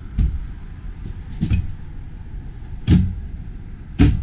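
Motorhome kitchen cabinet doors being opened and shut: four knocks and clunks, a little over a second apart, the last two the loudest.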